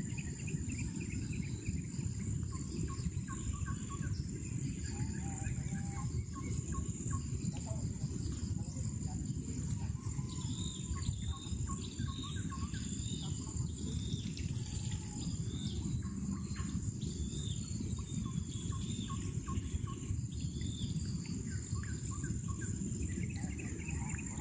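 Waterside countryside ambience: many small birds chirping in short calls and a steady high insect buzz, over a constant low rumble.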